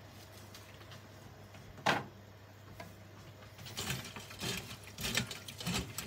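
A hand handling raw shrimp in a stainless steel mesh strainer, with soft, irregular handling sounds from about four seconds in. A single sharp knock about two seconds in.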